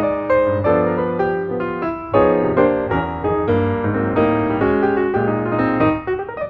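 Background piano music: a keyboard playing a steady run of notes and chords.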